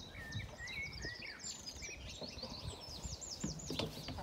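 Small wild songbirds chirping and singing: a busy run of short high notes, with a quick series of falling notes about three and a half seconds in, over a faint low rumble.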